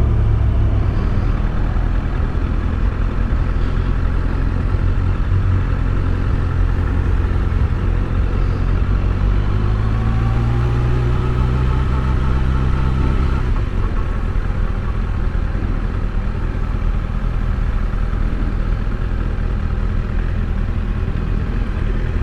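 Kawasaki ZX-6R's 636 cc inline-four running at low speed in slow traffic, heard from the rider's position. The engine note rises for a few seconds near the middle, then settles back to a steady low running note.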